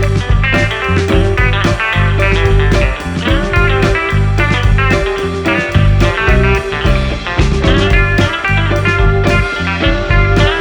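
Background music: a guitar-led blues-rock track with a steady bass and beat.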